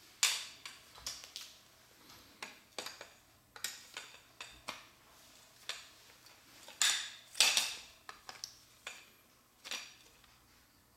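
Small hard parts of a Goldberg building kit clicking and clattering as they are handled and fitted together: about fifteen irregular sharp clicks, some with a short rattle. The loudest clatters come just after the start and around seven seconds in.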